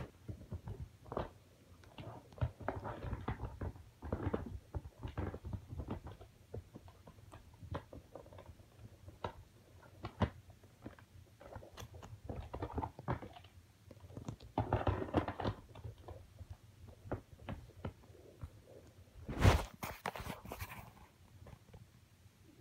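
Close handling noise: irregular rustling, crinkling and small clicks, with one louder knock about three seconds before the end.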